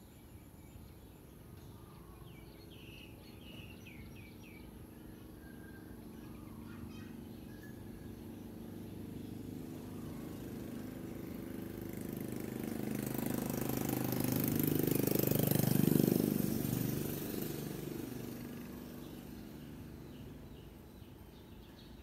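A motor vehicle passing by, its engine growing louder to a peak about two-thirds of the way through, then fading away. A few bird chirps sound near the start.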